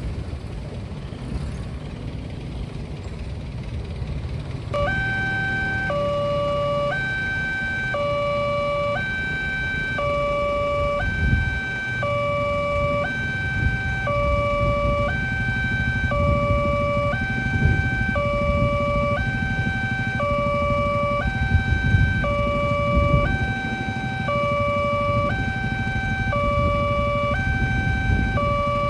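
Railway level-crossing barrier alarm siren switching on about five seconds in: an electronic two-tone wail alternating high and low about once a second, with a steady high tone above it, warning that a train is coming and the barrier is closing. Road traffic rumbles underneath.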